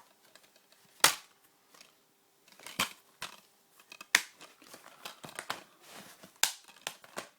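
Plastic DVD cases being handled, with several sharp clacks, the loudest about a second in, and lighter clicks and rustles in between.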